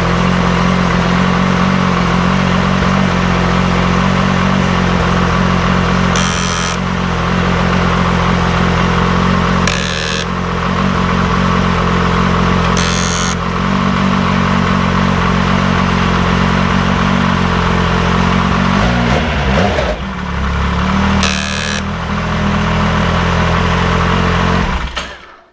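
Yamaha Viper snowmobile's 1049 cc three-cylinder four-stroke engine running at a steady idle, with a few brief higher-pitched noises over it. Its note dips and wavers about three quarters of the way through, and the engine shuts off near the end.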